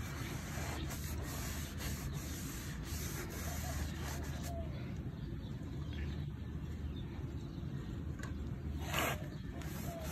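Cloth rag soaked in wood stain being rubbed over wooden chair slats, a steady scrubbing friction, with one short louder scrape about nine seconds in.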